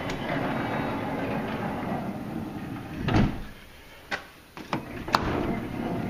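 Honda Odyssey power sliding door running on its motor, with a heavy thump about three seconds in as it reaches the latch. A few sharp clicks follow, then the motor runs again: the door is not going in far enough to catch the striker and latch.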